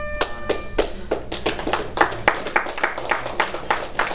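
A match timer's buzzer holding a steady tone that cuts off under a second in, marking the end of the bout, followed by a small group of people clapping.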